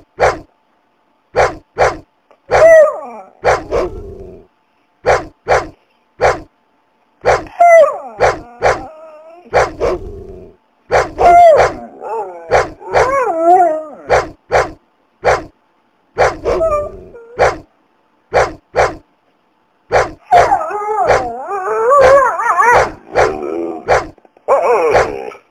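Dogs barking aggressively in many short, sharp barks, mixed with longer wavering cries, with abrupt silent gaps between clips.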